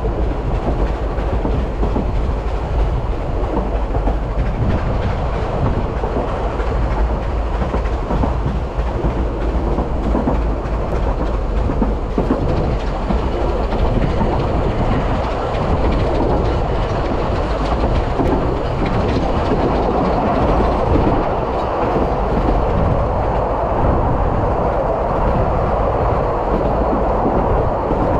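Narrow-gauge railway carriage running along the track: a steady rumble and clatter of wheels on rails, heard from an open-sided carriage.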